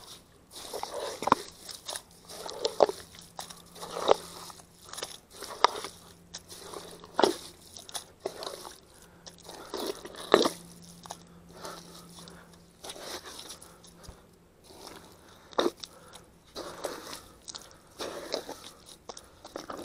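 Thick tidal mudflat mud squelching and sucking in irregular bursts every second or two, as someone stuck knee-deep digs at it with his hands and works his legs to get free.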